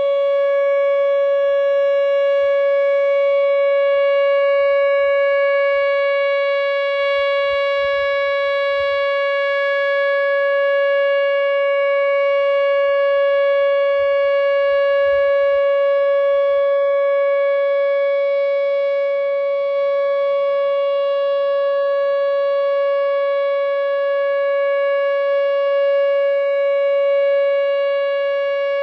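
Whelen WPS 2908 electronic speaker-array siren sounding a steady alert tone: one unwavering pitch with strong overtones, held loud throughout. It is the tornado warning signal, sounded here as a test.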